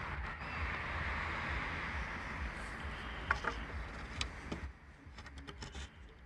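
Footsteps crunching and rustling through dry fallen leaves over a steady low rumble on the microphone. The rustling stops about two-thirds of the way through, and a few light clicks and knocks follow as the wooden recurve bow is handled and stood against a tree.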